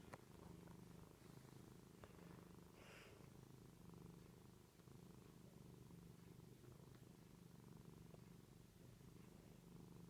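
Domestic cat purring softly and steadily, a low rumble that swells and fades about once a second.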